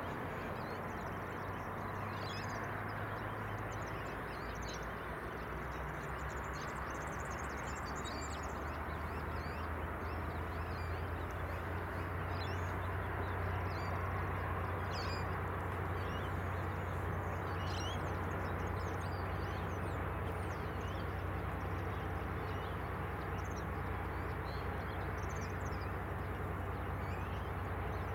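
Diesel railcar idling at the platform: a steady low engine hum that grows a little louder about ten seconds in. Many short bird chirps and calls sound over it.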